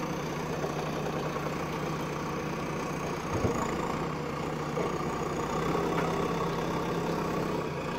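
JCB 3DX backhoe loader's diesel engine idling steadily, a little louder from about six seconds in, with a single sharp knock about three and a half seconds in.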